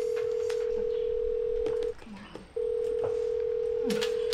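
Phone ringback tone heard through the handset: two long steady beeps at one pitch, each about two seconds, with a short break between, as the call rings unanswered.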